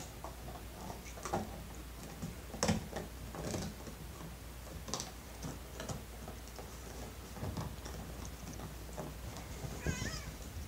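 Irregular soft taps and knocks as a tabby cat comes down the stairs and onto a couch while the phone filming it is moved and handled, with a short wavering sound near the end.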